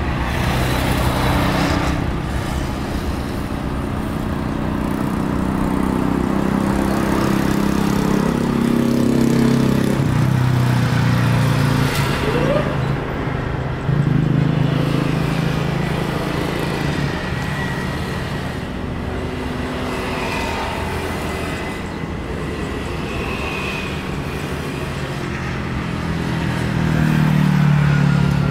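Steady low rumble of an Airbus A350-900's jet engines as the airliner rolls out along the runway after landing, swelling a little about halfway through and again near the end, mixed with the hum of road traffic.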